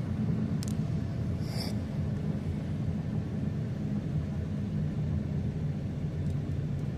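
Steady low rumble of a car driving slowly, engine and road noise heard from inside the cabin. Two short faint higher sounds come in about a second in.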